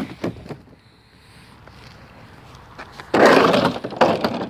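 A red-and-white striped street barricade being shoved aside. A few light knocks come at the start, then a loud, rough scraping clatter about three seconds in that lasts over a second.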